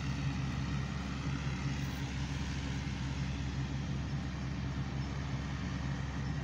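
Massey Ferguson MF 186 combine harvester running steadily while threshing wheat, a constant low engine hum.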